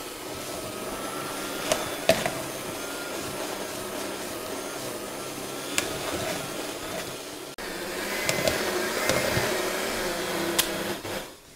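Handheld Bosch electric mixer with dough hooks running steadily as it kneads a stiff yeast dough in a plastic bowl, with a few sharp clicks along the way. The motor cuts off near the end once the dough has come away from the side of the bowl.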